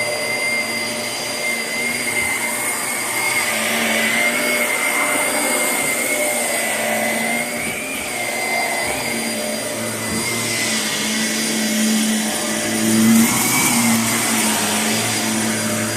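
Shark Navigator upright vacuum cleaner running steadily, with a high whine that wavers slightly in pitch over a constant rushing hum.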